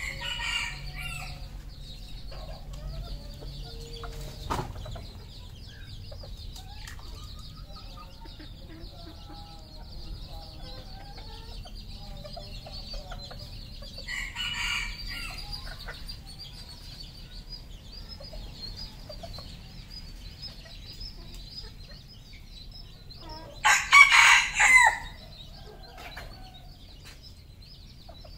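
Red junglefowl rooster crowing: the loudest crow comes near the end, broken into three quick parts, with shorter calls near the start and about halfway through.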